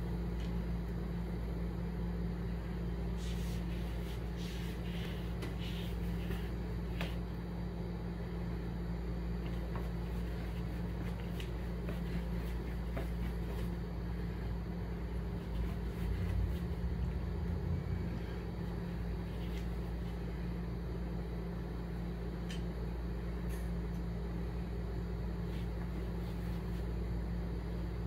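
A steady low mechanical hum with a constant hiss, a few faint clicks and taps scattered through it, and a brief swell of low rumble a little past the middle.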